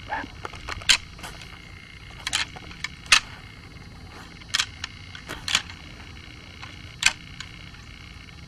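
4-n-2 rattling antlers clacking together in sharp, separate clicks at irregular intervals, about eight in all, used to imitate two bucks sparring.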